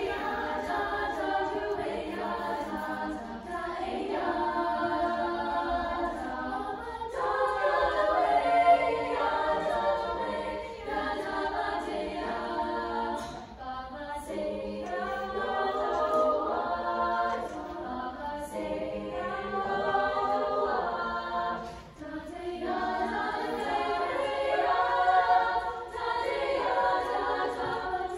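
Girls' choir singing a cappella in several parts, sustained phrases with short breaths between them.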